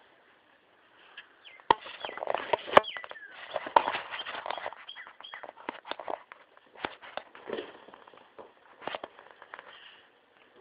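A dog wrestling a large play ball, mouthing and shoving it against an old tractor: an irregular run of knocks, clicks and scuffs that starts a couple of seconds in and dies down near the end.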